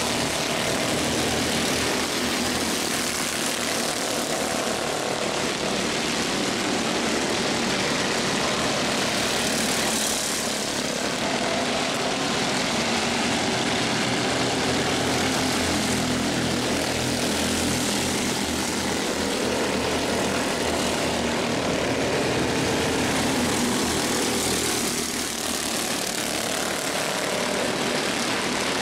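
A pack of Mini Cup race cars running at racing speed, their engines at high revs in a continuous wash, with the pitch swelling and sagging as cars pass. There is a brief drop in level about 25 seconds in.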